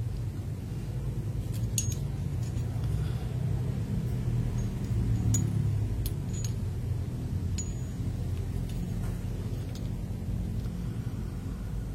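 A few faint, sharp plastic clicks from mechanical keyboard switches being handled and fitted into a keyboard, over a steady low hum.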